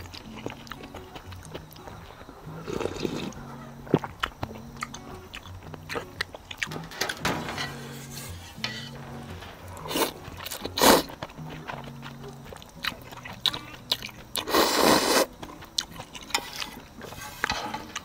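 Mouth sounds of eating spicy kimchi with ramen noodles: scattered crunchy bites and chewing, with sharp crunches about 4 and 11 seconds in and a louder, longer wet noise about fifteen seconds in, over soft background music with a simple repeating melody.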